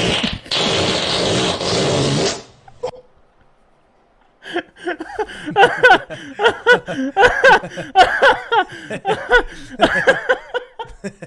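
A long, loud, hissy fart that cuts off about two and a half seconds in. After a short silence, two men laugh hard in repeated giggling bursts for the rest of the time.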